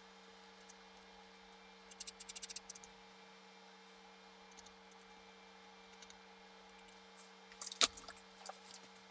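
Small objects being handled on a workbench: a quick run of light clicks about two seconds in and one sharp knock near the end, a few small ticks after it. A steady electrical hum runs underneath.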